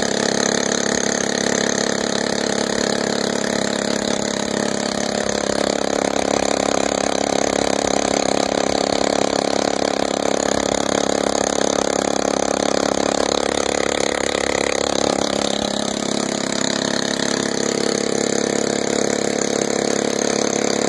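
Air-cooled single-cylinder motorcycle engine, Honda-pattern with a Safari clutch cover, running steadily while it drives an air compressor by belt. Its note shifts higher about five seconds in and drops back about fifteen seconds in.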